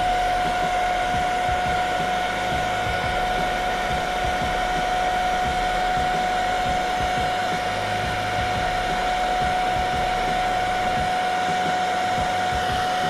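Rowenta hair dryer running steadily: a constant rush of air with a steady whine from the fan motor.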